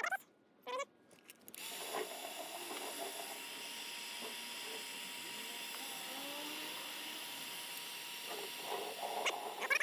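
Electric heat gun blowing hot air in a steady hiss, switched on about a second and a half in, shrinking heat-shrink tubing over a soldered wire splice.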